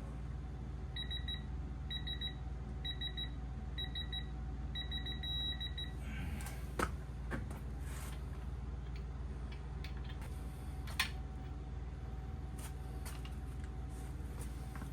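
Digital torque wrench beeping while main bearing cap bolts are torqued: four short beeps about a second apart, then a longer beep that signals the set torque is reached. A couple of sharp metal clicks follow later.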